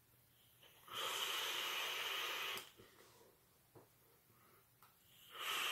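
A drag on a vape: a steady hiss of air drawn through the atomizer for almost two seconds, then a second, shorter hiss of breath near the end.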